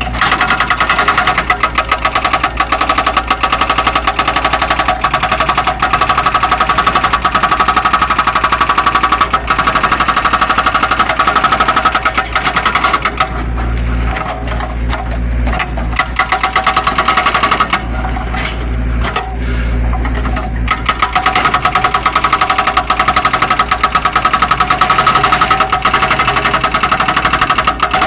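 Zoomlion excavator working, its engine and hydraulics under load with a fast, even rattle. The rattle drops away twice to a lower engine hum, then returns.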